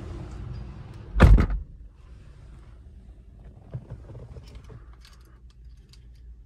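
Proton X70's car door slamming shut with one loud, heavy thunk about a second in. After it the outside noise drops away to a quiet cabin, with only a few faint clicks and handling sounds.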